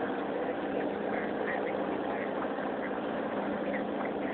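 Small fishing boat's motor running steadily under way, with a faint steady hum beneath an even wash of water and wind noise.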